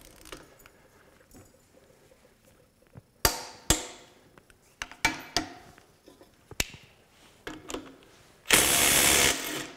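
A few sharp clicks and knocks as a torque wrench is pulled on a bolt. Near the end, a Ridgid 18-volt sub-compact 3/8-inch impact wrench hammers for about a second, breaking loose the bolt torqued to 160 ft-lb.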